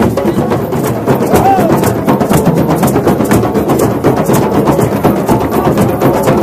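A drum circle of many hand drums, djembes among them, playing together in a dense, driving rhythm. A brief high note rises and falls about a second and a half in.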